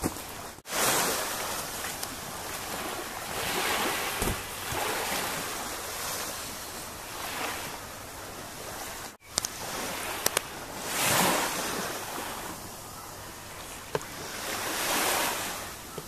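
Small sea waves washing up onto a sandy beach, swelling and fading every three to four seconds, with a few faint clicks. The sound drops out for an instant twice.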